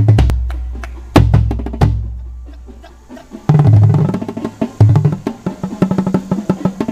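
A line of five tuned Yamaha marching bass drums at 180 beats per minute. It lands an accented low unison hit, plays two more low hits that ring out into a short pause, then resumes with fast split runs, the notes passed from drum to drum down and up the line's pitches.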